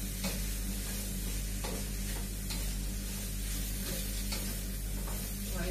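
Onions and carrots sizzling as they sauté in butter in a frying pan, with a spatula stirring and scraping against the pan now and then.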